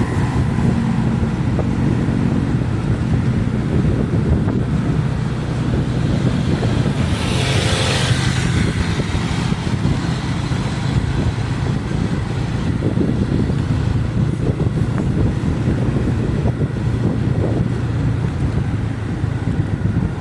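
Motor vehicle engine running steadily with road noise. A louder rush of noise about seven seconds in, lasting a second or so, like a vehicle passing close by.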